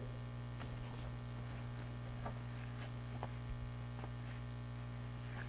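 Steady low electrical mains hum, with a few faint clicks and soft rustles of paper and pages being handled.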